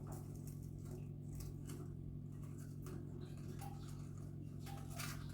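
Quaker parrot chewing and scratching at a cardboard tube with its beak: irregular light clicks and rustling scratches, over a steady low hum.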